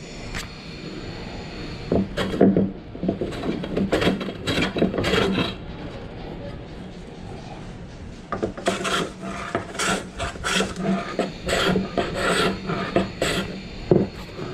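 Hand plane shaving along the edge of a patched plywood door panel in repeated strokes, about two a second, pausing for a couple of seconds midway.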